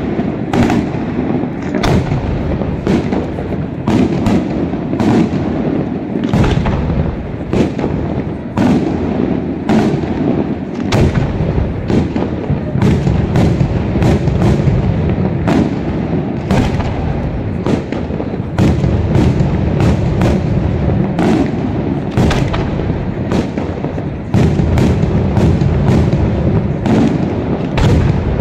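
Aerial firework shells bursting in rapid succession during a fireworks display. There are about two sharp bangs a second over a continuous rumble of booms and their echoes.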